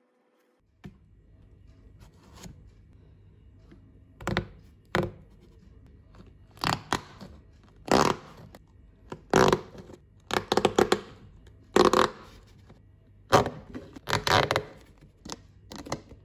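Knife cutting through the thin plastic wall of a yogurt tub just below its rim: a dozen or so short scraping, cracking strokes at uneven intervals, starting about four seconds in.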